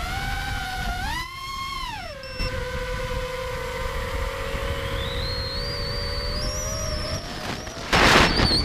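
Brushless motors and propellers of a 5-inch FPV quadcopter (DYS Samguk 2207 2600KV motors, 5045 props) whining in flight, heard from the GoPro on the drone; the pitch rises and falls back about a second in, and a higher whine climbs in the middle. About eight seconds in the motor whine gives way to a loud rush of air as the receiver link is lost and the drone falls.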